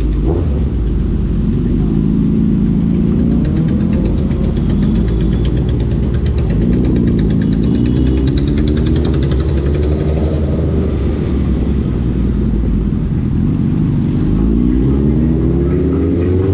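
Suzuki Hayabusa Gen3's 1340 cc inline-four running through an Ixil aftermarket exhaust while riding. The engine note rises in pitch several times as the bike accelerates, near the start, in the middle and again near the end.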